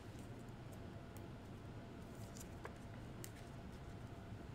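Faint clicks and light rustling of trading cards being handled and slid into plastic sleeves, over a low steady hum.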